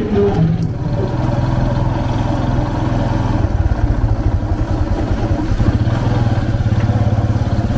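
A small engine running steadily close by, a low even engine note with rapid pulsing that grows slightly more uneven partway through.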